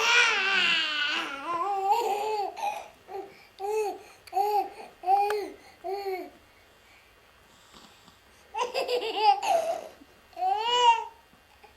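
High-pitched fits of laughter: a long, squealing laugh at the start falling in pitch, then a string of short, evenly spaced 'ha' pulses, a pause, and two more bursts of laughter near the end.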